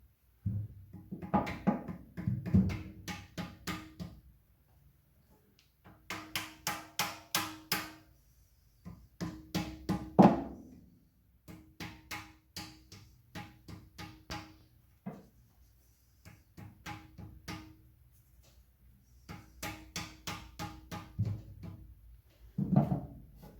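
Background music with a percussive beat: phrases of evenly spaced drum-like strikes over a held low note, with short breaks between phrases.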